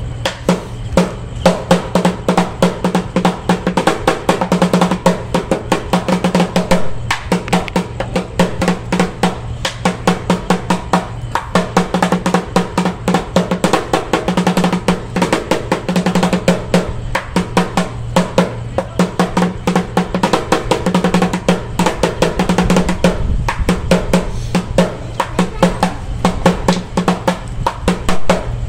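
Lion-dance drumming: rapid rolls and beats on a large drum, swelling and falling back in repeating phrases, keeping time for a monkey dance.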